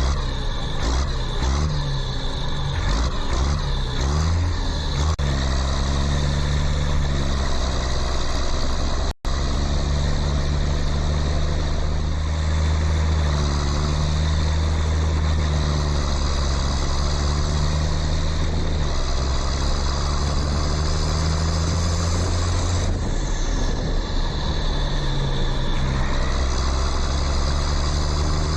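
A steady, low engine-like drone running throughout, more uneven for the first few seconds, with a sudden momentary cut about nine seconds in.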